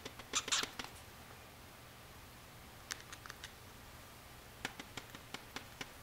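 Sharp plastic clicks from tapping on a TV remote control, in irregular groups like morse-code keying: a quick cluster just under a second in, a few more around three seconds, then a run of about seven taps near the end.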